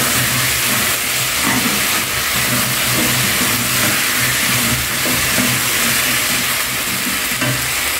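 Cubed potatoes frying in hot oil in a pan, giving a steady loud sizzle while a wooden spoon stirs them, with a low hum underneath.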